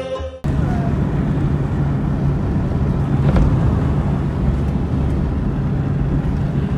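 Car driving steadily along a road: a constant engine hum under even road and wind noise, heard from inside the vehicle.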